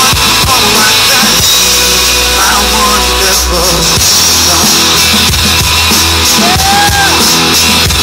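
Live rock band playing loud through the PA: electric guitars, bass guitar and drum kit, with a steady, pulsing bass line and short gliding lead lines over it.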